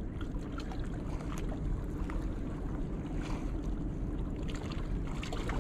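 Steady low wind rumble on the microphone over lapping water, with a few faint ticks from a baitcasting reel as a fish is cranked in.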